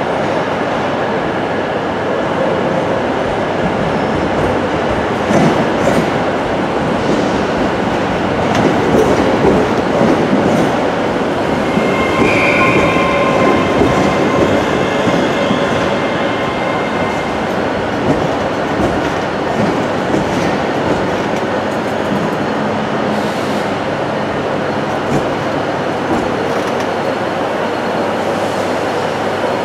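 A ScotRail Class 385 electric train running slowly into the platform, with a steady rumble and wheels knocking over the rail joints and points. About twelve seconds in a high squeal rises over it and fades after a few seconds.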